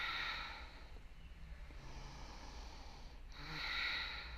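A woman's deep, audible breathing while she holds a yoga stretch. One breath comes at the start, a softer one about two seconds in, and the loudest near the end, over a faint steady low hum.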